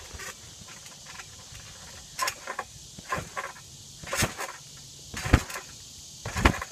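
Trampoline bouncing: a jumper lands on the mat about once a second, each landing a short thump. The thumps grow louder toward the end.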